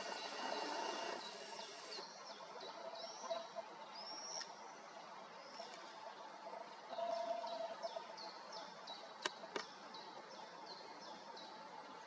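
A camera's zoom motor whirrs for the first two seconds. After that a small songbird sings short, high, repeated chirping notes, with two sharp clicks about nine seconds in.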